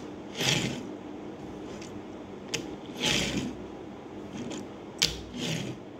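A die-cast Hot Wheels toy car rolled back and forth on a tabletop, its small plastic wheels whirring, three short rolls each beginning with a light click.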